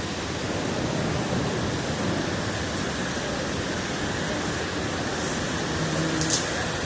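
Steady, even roar of a steel plant's blast furnace and its machinery, with one short sharp click a little before the end.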